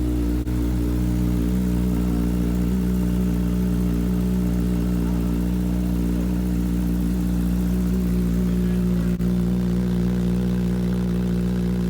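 2017 Honda CBR1000RR Fireblade's inline-four engine idling steadily through a newly fitted Yoshimura full exhaust system.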